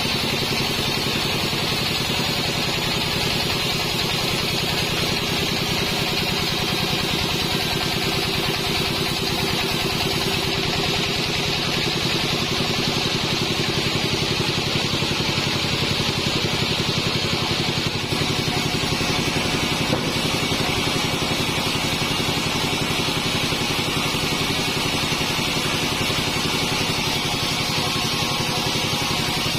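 Band sawmill running steadily: a constant machine drone with a strong high hiss from the blade, shifting slightly in tone about ten and eighteen seconds in, as it saws a teak log.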